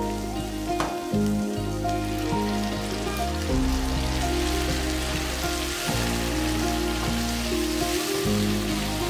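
Background music with sustained low notes that change every second or two, over sausage slices and onion sizzling in a frying pan as they are stirred with a wooden spatula. The sizzle grows stronger about four seconds in.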